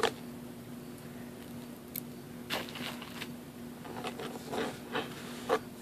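Clear plastic bag being handled close to the microphone, giving short crinkles and rustles in scattered bursts.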